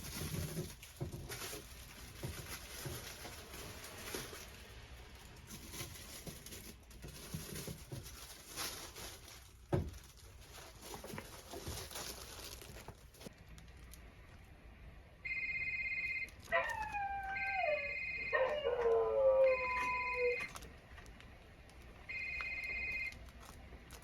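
Soft rustling with a few clicks, then an electronic ringing tone sounding four times, about a second each. Between the first rings a dog howls in long falling slides, the loudest sound here.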